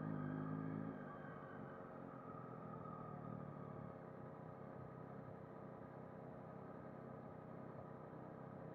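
Yamaha MT-09 SP's three-cylinder engine running at low revs as the bike rolls slowly. It is a little louder for about the first second, then steady.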